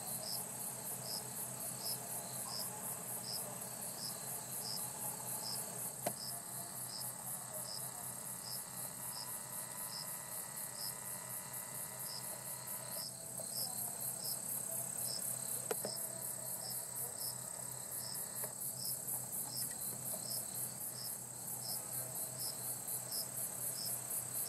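Insects singing: a continuous high, fast-pulsing trill, with a second chirp repeating about twice a second. Two brief faint clicks, about six and sixteen seconds in.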